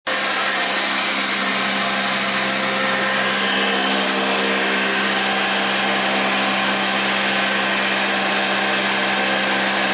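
Blade-type atta chakki wheat flour mill, belt-driven by a 20 hp three-phase AC electric motor, running steadily: a continuous whir over a steady hum.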